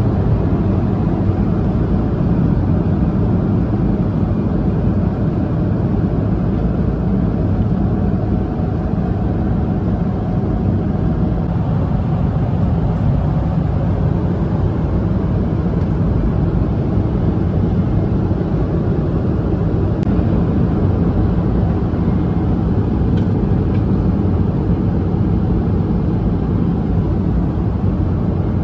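Steady low cabin drone of a Boeing 777-300ER in cruise: the even rush of airflow and engine noise heard inside the passenger cabin.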